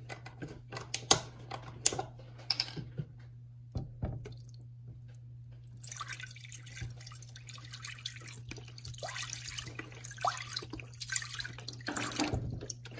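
Chicken broth pouring from a carton into an empty pot, a steady splashing stream that starts about halfway through, after a few sharp clicks and knocks of handling.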